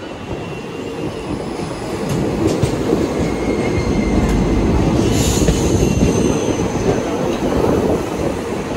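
Indian Railways passenger coaches rushing past close alongside on the next track: a dense rumble of wheels on rail that swells a couple of seconds in. It carries a few sharp rail-joint clicks and thin, high wheel squeals.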